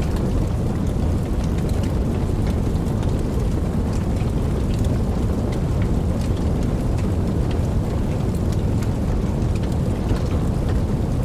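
Steady rain falling, with scattered sharp drop taps over a continuous deep rumble.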